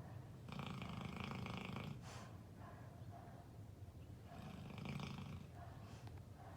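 Snoring of a sleeper: two long snores, the first starting about half a second in and the second about four and a half seconds in, with short softer breaths between them.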